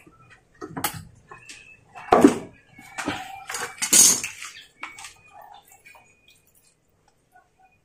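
Scattered clicks, knocks and clatter of hands working the hose connections of a Hoyoma pressure washer, plastic and metal fittings being handled.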